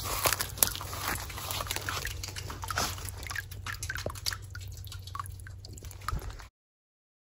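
Rustling and crackling of grass and brush stirred by someone walking through it, with many scattered sharp clicks. The sound cuts off suddenly about six and a half seconds in.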